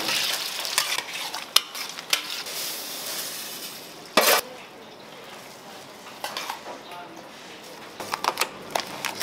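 Food sizzling in a hot pan while a metal utensil stirs it, clicking and clinking against the pan. There is a short loud burst about four seconds in, then the sizzle is quieter, with scattered clinks near the end.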